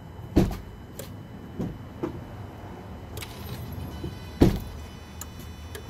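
Two loud dull knocks, about half a second and four and a half seconds in, with a few lighter taps and clicks between: hands handling parts in a car's engine bay.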